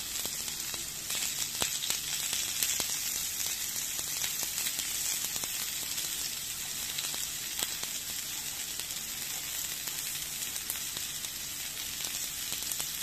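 Rump steak and asparagus sizzling on a ridged grill plate: a steady high hiss with scattered small crackling pops.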